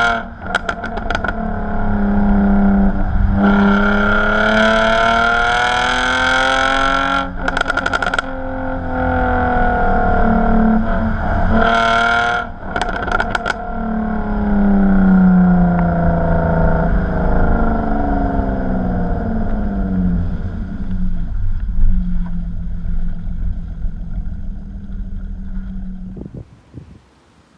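Jaguar F-Type's supercharged 3.0-litre V6 through a Remus aftermarket exhaust, heard close to the tailpipe while driving. It revs up hard through two upshifts, each marked by a short burst of crackling, then the revs fall away as the car slows and it runs steadily before fading out near the end.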